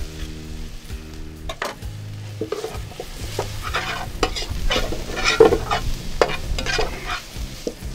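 Spinach, spring onions and herbs sizzling as they sauté in hot oil in a pan. A spoon stirs them, scraping and clicking against the pan, the strokes getting busier from about halfway through.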